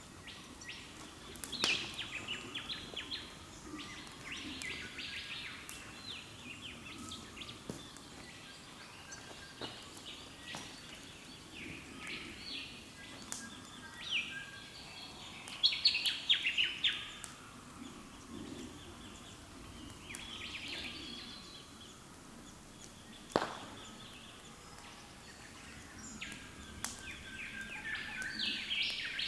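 Early-morning chorus of several wild birds calling and chirping in quick runs of high notes, busiest and loudest around the middle, with a couple of sharp cracks. A faint steady background hum of the outdoors lies under it.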